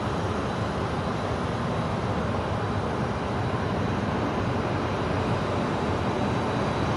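A steady, even rumbling noise, growing slightly louder near the end.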